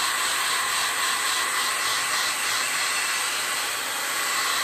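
Hand-held hair dryer running steadily: a rush of blown air with a thin, steady whine under it, aimed at a canvas to dry wet acrylic paint.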